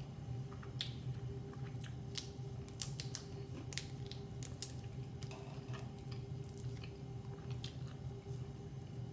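Close-up chewing and biting on crispy beer-battered fried seafood, with irregular sharp crackles as the batter crunches. A steady low hum runs underneath.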